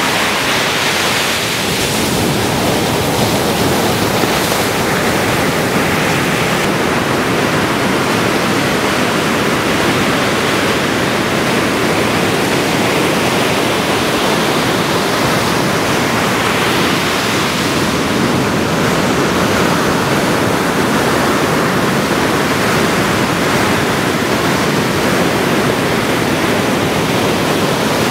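Ocean surf: a steady rushing noise of breaking waves, swelling slightly now and then.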